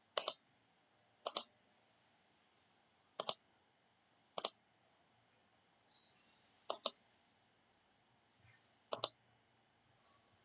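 Computer mouse clicking: six separate clicks spread unevenly over several seconds, each a quick pair of ticks, against a quiet room.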